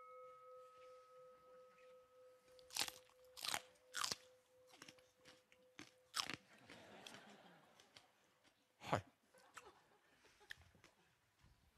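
The ring of a bell fading away over the first six seconds, the ding that calls for the next, hotter chili, then a few sharp, faint crunches and chewing as raw red chili peppers are bitten and eaten.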